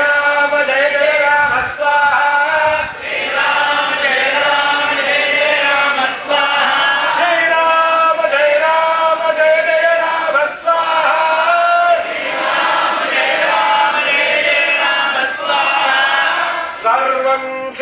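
A group of men chanting a Hindu Vedic mantra together in unison, in long melodic phrases with short breaks between them.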